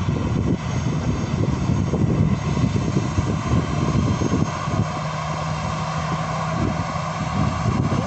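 AirAsia Airbus A320 jet airliner's engines running as it rolls past: a steady low rumble with a thin, steady high whine over it.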